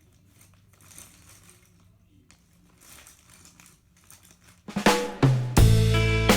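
Background music: a quiet gap with only faint soft ticks, then a new track starts near the end with drum hits and a bass line.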